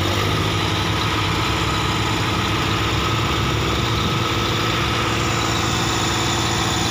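Diesel engines of a JCB backhoe loader and a New Holland tractor running steadily together as the loader's bucket pushes against a sugarcane-laden trailer.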